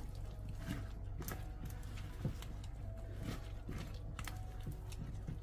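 Silicone spatula folding diced apples into thick cake batter in a glass bowl: irregular wet squelches and light knocks of the spatula against the glass.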